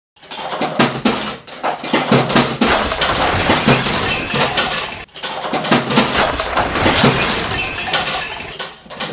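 Busy clatter of dishes, pots and cutlery being handled at a kitchen counter, full of knocks and clinks. It breaks off for a moment about five seconds in.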